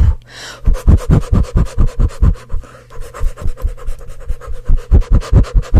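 Hand fan waved rapidly right at the microphone, each stroke a gust of air buffeting the mic, about four or five strokes a second; the strokes weaken in the middle and grow strong again near the end.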